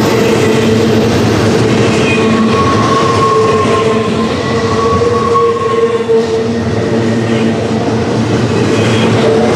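Double-stack intermodal freight cars rolling past close by, steel wheels on rail making a loud, steady rumble with a steady ringing tone running through it.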